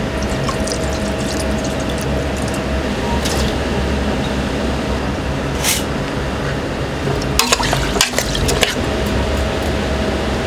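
Liquid running or being poured over a steady low hum, with a cluster of sharp knocks about seven to nine seconds in.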